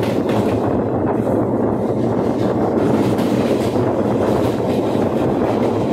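Moving passenger train heard from the side of a coach: a steady rush of wheel-on-rail noise and wind, with faint wheel clatter.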